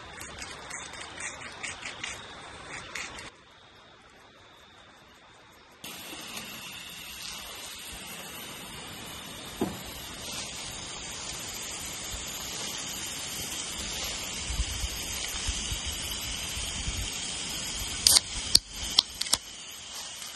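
Crickets chirping steadily for the first few seconds, then a ribeye steak sizzling as it cooks, a steady hiss. A few sharp clicks near the end.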